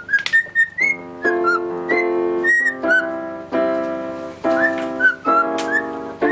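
A canary chirping and singing short, high notes over organ chords played in a series of held chords.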